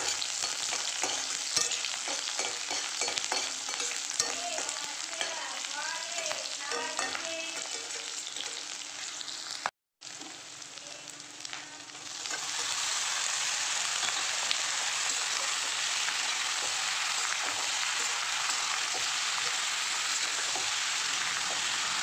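Onions, green chillies and bay leaves frying in hot oil in a wok, with small clicks of stirring. The sound breaks off briefly. About twelve seconds in, pieces of pork offal go into the pan and the sizzling grows louder and holds steady.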